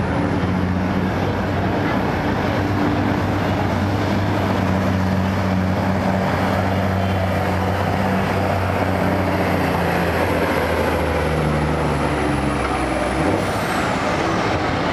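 Semi tractor's diesel engine pulling a weight-transfer sled under heavy load: a steady deep drone with a high turbo whistle over it. About thirteen seconds in, the whistle falls and the engine note drops as the driver comes off the throttle at the end of the pull.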